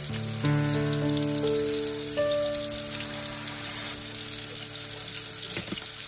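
Meat patties sizzling in hot oil in a frying pan, a steady hiss under background music of held notes that change every second or so.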